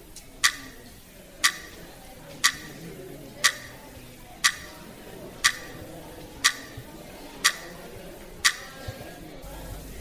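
Quiz countdown timer ticking once a second, about nine sharp ticks, counting down the answer time for a question. The ticks stop about a second before the end.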